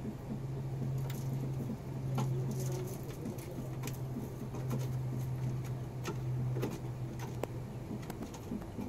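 A steady low hum that stops about two-thirds of the way through, with scattered light clicks and scratches from a red junglefowl's feet on dry litter and wooden boards.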